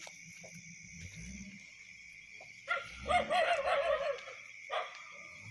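A wavering animal call with a shaking pitch, loudest about three seconds in and lasting over a second, with a shorter call near the end. Under it runs a steady high chirring of night insects.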